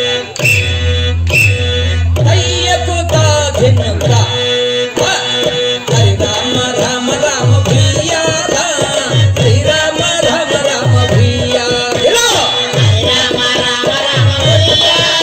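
Folk dance music: a steady drum rhythm whose deep strokes slide down in pitch, with a wavering melody over it.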